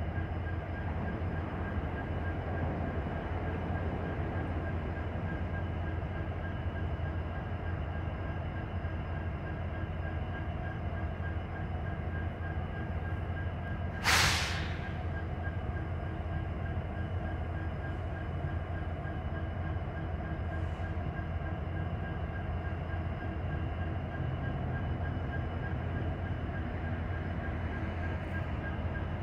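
Diesel locomotives idling, a steady low rumble. About halfway through, a short, loud hiss, like air venting.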